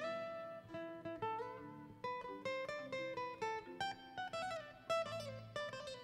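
Background music: a plucked acoustic guitar playing a quick run of single notes.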